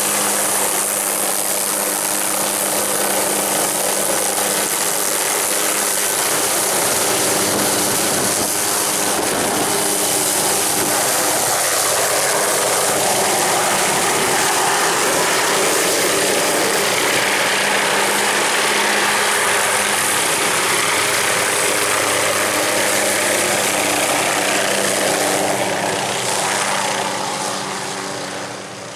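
MD 500-type light turbine helicopter running close by at power, a steady turbine whine and rotor noise as it lifts off and hovers. The sound fades in the last few seconds as it moves away.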